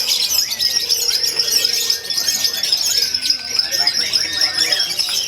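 Birds singing continuously: short gliding whistled notes and quick chatter over a steady, dense high-pitched song.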